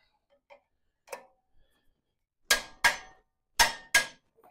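Sharp metal-on-metal clanks, each ringing briefly: a faint one about a second in, then two quick pairs of strikes, one near the middle and one toward the end, as steel tractor implement parts are struck while a cultivator disc is fitted.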